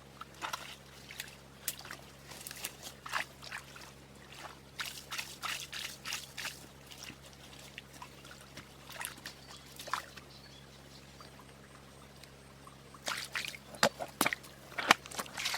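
Water splashing and dripping in short, irregular bursts, as when water is scooped, poured or worked by hand. It eases off about two-thirds of the way through, then comes back louder near the end.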